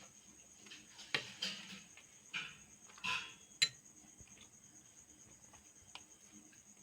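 Close-up eating sounds: several short crunches and clicks of chewing and handling food, bunched in the first four seconds, then only faint ticks.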